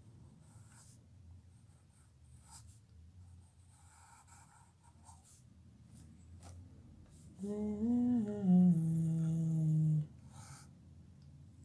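A person humming a short tune: a few notes that rise, then fall and settle on a held low note, starting a little past halfway and stopping shortly before the end. Before it there are only faint scratches of a graphite pencil drawing on paper.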